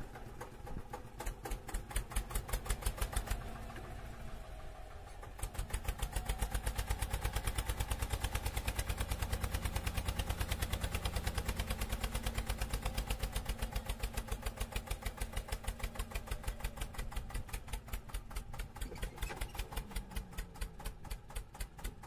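A tractor engine chugging at idle with a fast, even beat. It dips briefly about three to five seconds in, then picks up again.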